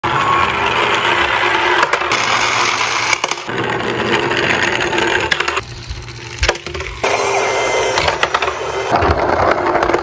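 Toy vehicles rolling down a board slope: the rolling rumble of their wheels, with clicks and knocks. The sound changes abruptly several times.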